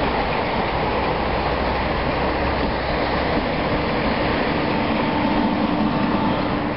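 Passenger train of coaches running by underneath, a steady rolling rush of wheels on rail. Near the end, as the electric locomotive at the train's rear passes, a faint steady hum joins in.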